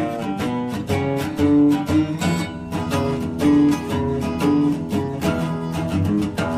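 Background music: a strummed acoustic guitar playing at a steady beat.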